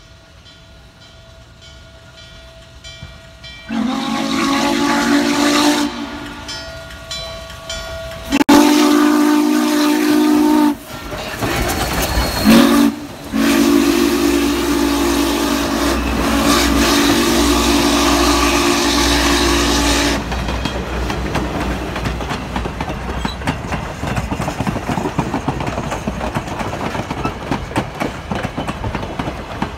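Norfolk & Western 611 steam locomotive's chime whistle sounding long, long, short, long, the grade-crossing signal, the last blast held for about seven seconds as the engine passes close by. Then its passenger cars roll past with steady wheel noise and clicking over the rail joints.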